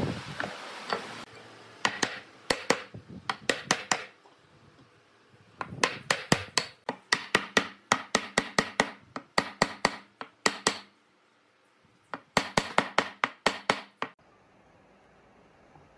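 Hammer blows on wood, knocking a bench leg's joint home into the slab seat. The blows come in three quick runs of about three or four a second, with short pauses between the runs.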